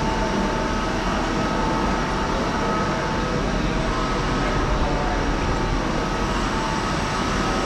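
Steady rushing road and wind noise of a motorcycle ride, with a heavy low rumble and a faint steady whine underneath.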